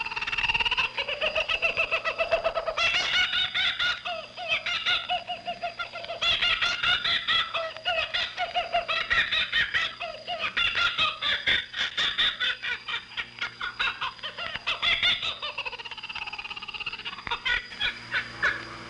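Laughing kookaburra call, Radio Australia's interval signal, heard off-air through a shortwave receiver: bouts of rapid rhythmic chattering that rise and fall, with a steady thin high whistle under it.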